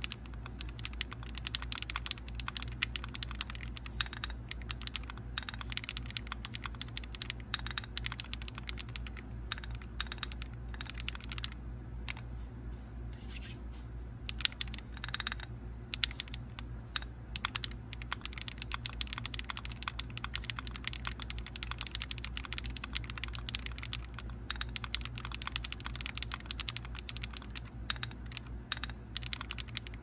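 Typing on an Akko Alice Plus mechanical keyboard with lubed Akko Wine Red linear switches, a polycarbonate plate, full foam and ASA-profile keycaps: a dense, steady run of keystroke clacks, with brief lulls about twelve and fourteen seconds in.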